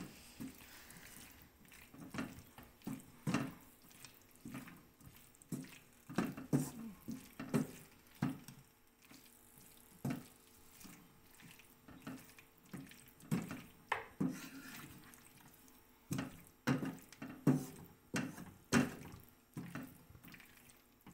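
Wooden spatula stirring and tossing cooked penne pasta with chicken in a wok: irregular wet scraping strokes against the pan, roughly one a second.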